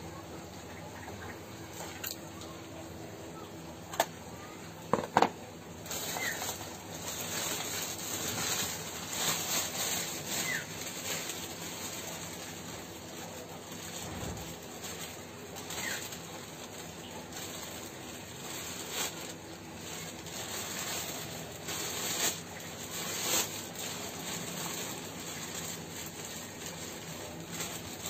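Thin black plastic bag rustling and crinkling as a hand works inside it, steadily from about six seconds in. A few sharp knocks come just before it, around four to five seconds in.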